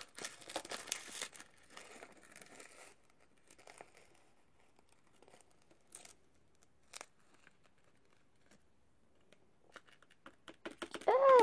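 Crinkly rustling of something being handled for the first three seconds, then a few faint light clicks as a hand works over the plastic gummy-mold tray. Near the end a short hummed voice sound, rising then falling.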